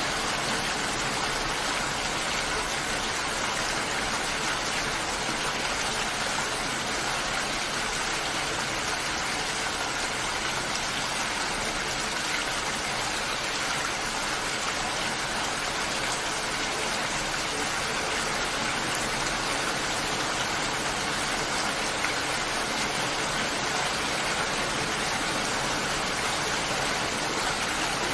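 Steady heavy rainfall: an even, unbroken hiss of rain with no single drops standing out and no change in level.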